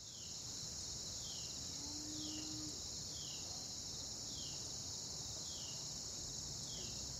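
Steady high-pitched trilling of a cricket chorus, fading in at the start. Over it a short falling chirp repeats a little less than once a second.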